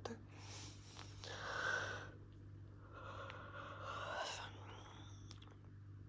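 A person breathing out in two long, breathy sighs, the second ending in a short rising sound, over a steady low hum.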